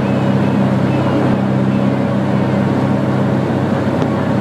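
Steady drone of a light aircraft's piston engine and propeller in cruise, heard inside the cabin: an even low hum over a wash of engine and air noise, unchanging throughout.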